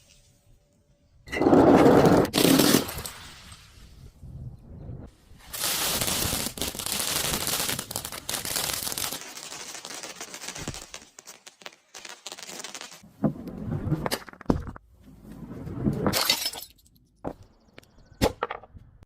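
Glass bottles shattering and crunching as they are crushed, in several separate bursts with quiet gaps between, the loudest about two seconds in.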